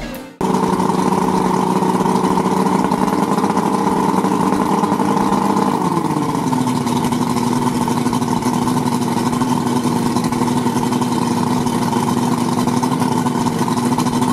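Yamaha 150 V6 two-stroke outboard running steadily, its engine note shifting about six seconds in and then holding steady, with cooling water splashing out of the open thermostat housing.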